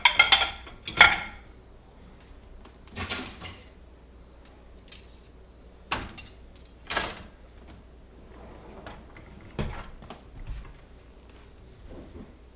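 Dishes and cutlery clattering and clinking as they are loaded into a dishwasher rack: scattered short knocks, a cluster of the loudest in the first second or so, then single clinks every second or two.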